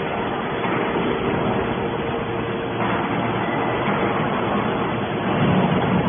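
Hydraulic scrap metal baler running: a steady mechanical noise with a faint hum.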